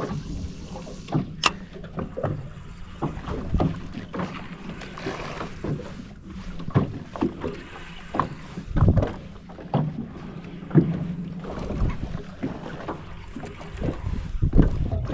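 Irregular knocks and thumps against a fishing kayak, with water sloshing, as a hooked shark mackerel is fought and brought in.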